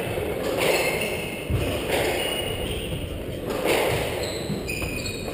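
Squash rally: the ball cracks off rackets and thuds against the court walls a few times, while court shoes squeak in short, high chirps on the wooden floor.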